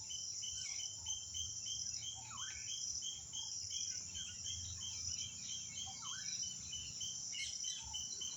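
Insects trilling in a steady high drone, with a thin chirp repeating about three times a second. Over it a bird gives a short rising call every second and a half to two seconds.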